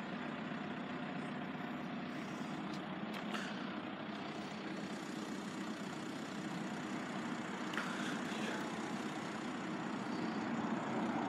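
Steady hum of idling vehicle engines, with faint taps about three seconds in and again near eight seconds.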